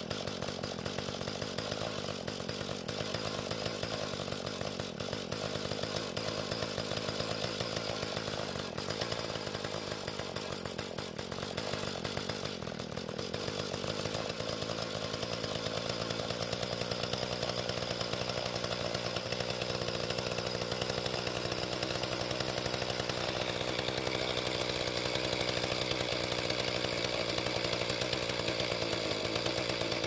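Mantis tiller's small two-stroke engine idling steadily, a little louder toward the end. It is running smoothly on a carburetor freshly richened at the low-speed (L) screw, with the idle screw turned in, after it would only run choked and died when revved.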